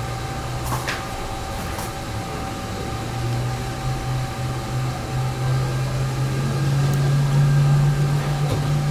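A steady low mechanical hum that grows a little louder and higher after about three seconds, with faint clicks about one and two seconds in.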